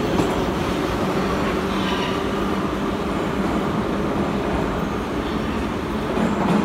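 81-540/541 'Nomernoy' metro train pulling out of the station: a steady running noise of wheels on rail and motors, with a low steady hum under it.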